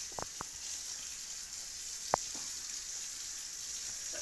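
Faint taps and clicks from a Labrador pawing and mouthing at the stone edge of a doorstep: two soft ones near the start and a sharper tap about two seconds in, over a steady hiss.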